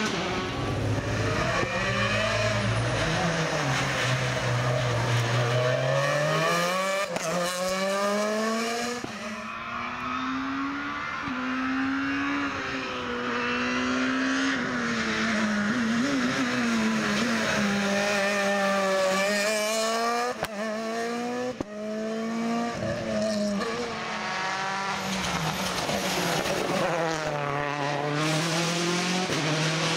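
Rally car engines at full throttle on a special stage, several cars passing in turn. Each engine climbs in pitch and drops back as the driver shifts gear and lifts for corners.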